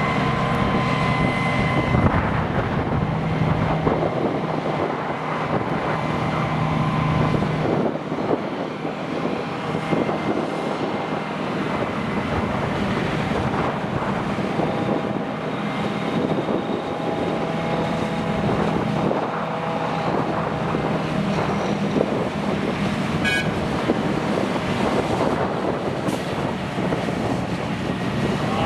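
Diesel engine of heavy farm machinery running steadily, its engine note shifting slightly in pitch now and then.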